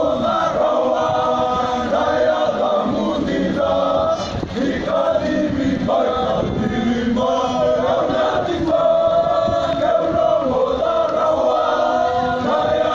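A group of young men singing together in several voice parts, in long held phrases with short breaks between them.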